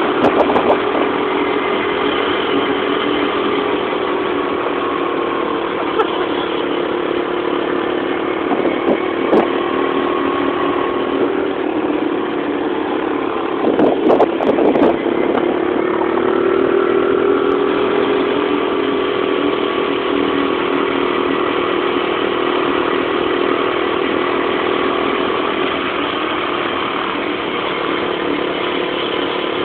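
Small engine running steadily at a fairly constant speed, its pitch wavering slightly, with a short stretch of rattling or buffeting about halfway through.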